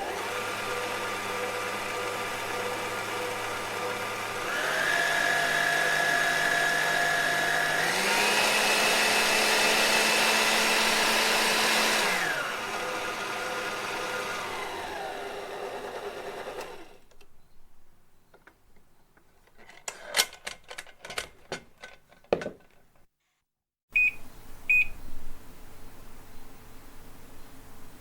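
Electric kitchen blender running, its motor stepping up through two higher speeds and then back down before it winds to a stop, followed by a few clicks. After a short gap, a microwave oven hums with short high beeps.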